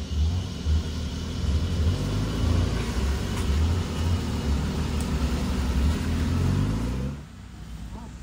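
Suzuki Jimny's 1.5-litre four-cylinder petrol engine running while driving off-road, a low drone that pulses unevenly with the throttle. Its pitch rises briefly, then the engine sound drops away sharply about seven seconds in.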